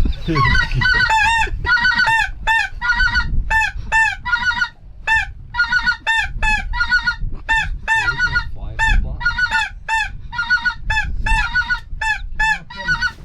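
Hand-blown waterfowl call worked in a steady run of short, loud honking notes, about two or three a second, calling a bird in toward the hunters.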